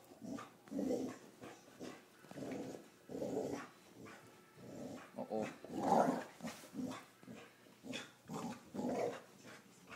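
Two dogs growling in play while tugging on a toy: a string of short growls, the loudest about six seconds in.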